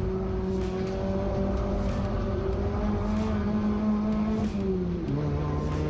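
Chevrolet touring race car's engine at full throttle, heard from inside the caged cabin, its pitch climbing slowly through the gear. About five seconds in there is an upshift: the pitch drops and then starts climbing again, over steady road and wind noise.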